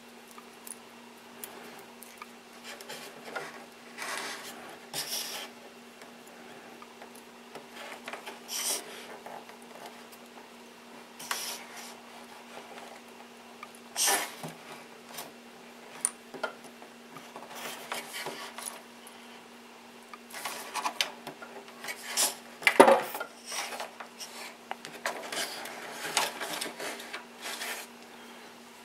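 Hands handling servo wires and pushing a plastic bind plug into a port inside a model airplane's wooden fuselage: scattered small clicks, taps and rustles, the sharpest about three-quarters of the way in. A steady low hum runs underneath.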